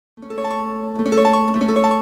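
Background music: a held low note with a short run of higher plucked-string notes changing over it, starting just after the beginning.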